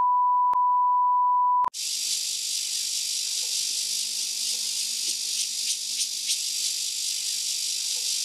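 A steady high test-tone beep, the kind played over television colour bars, cuts off about a second and a half in. It gives way to a steady high hiss of insects chirping in the background.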